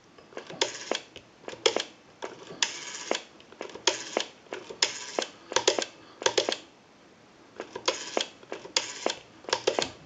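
Rotary dial of a Stromberg-Carlson candlestick telephone being dialed: a string of short bursts of rapid clicks, one for each digit as the dial spins back, with brief pauses while the next digit is wound up. The newly serviced dial is returning smoothly as it dials out a number.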